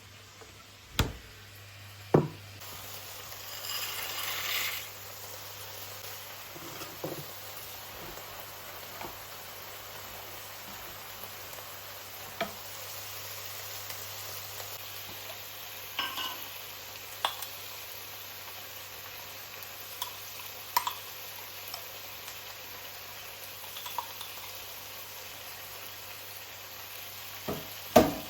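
Food sizzling in a frying pan, with a steady hiss that starts a couple of seconds in. Occasional clinks and knocks of a utensil against the pan or dishes are heard throughout, the loudest two sharp knocks near the start and one at the end.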